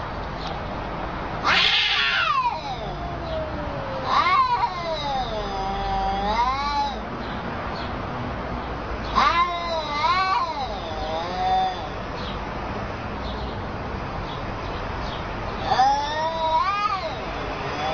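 Two cats yowling at each other in an aggressive face-off: several long, wavering yowls that rise and fall in pitch, with pauses between them.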